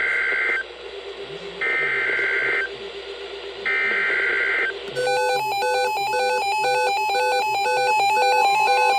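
Emergency Alert System SAME header: three one-second bursts of warbling digital data tones, a second apart, announcing the severe thunderstorm warning. About five seconds in, a rapidly pulsing electronic alert tone of several pitches starts and repeats.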